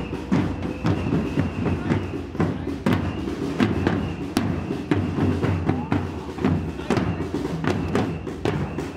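A marching drum group playing snare drums and bass drums while walking, with many sharp drum hits over a crowd's voices.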